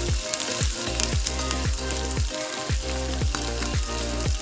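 Chopped onions frying in hot oil in a pan, a steady sizzle and crackle, over background music with a steady beat.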